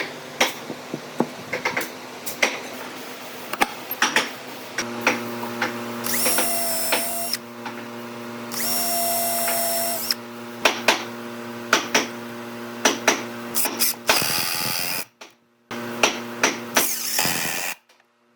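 Woodworking shop sounds: repeated knocks and taps from handling and working the wood, and a small power tool running twice, each time for a little over a second, with a high whine.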